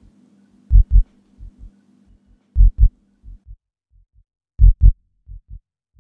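Deep heartbeat thuds used as a suspense sound effect. A loud double beat comes about every two seconds, each followed by a softer double echo. A low steady hum fades out about halfway through.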